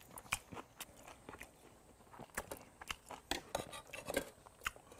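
A person chewing a mouthful of spicy raw goby salad with vegetables close to the microphone: irregular short crunches and wet clicks.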